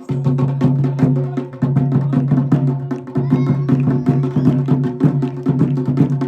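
Kumaoni folk music, instrumental: fast, dense percussion strikes over a steady sustained drone, with a short wavering melodic line about halfway through.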